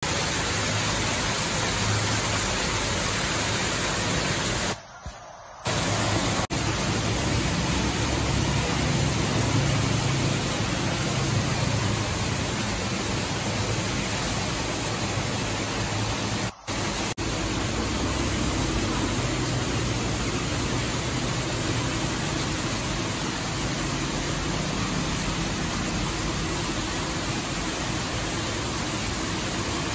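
Steady rush of water pouring down an artificial rock waterfall and splashing into a pond, dropping out briefly about five seconds in and again a little past the middle.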